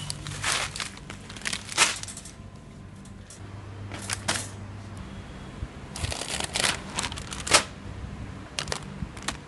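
Plastic snack packets crinkling and rustling in short irregular bursts as they are handled and put into a wire shopping cart, over a low steady hum.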